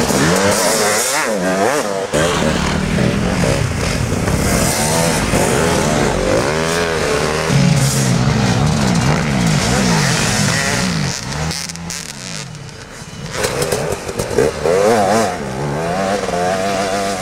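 Several dirt bike engines revving up and down at once as the bikes ride through deep snow. They drop away briefly about two-thirds through, then rev again.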